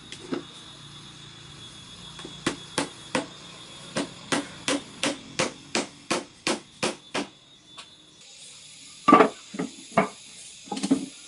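A hammer striking repeatedly at a steady pace, about three blows a second, then a few heavier knocks near the end.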